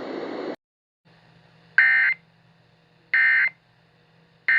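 Emergency Alert System end-of-message data bursts: three short, identical bursts of buzzy modem-like digital tones, each about a third of a second long and a little over a second apart, marking the end of the alert. A faint hiss from the voice message cuts off about half a second in.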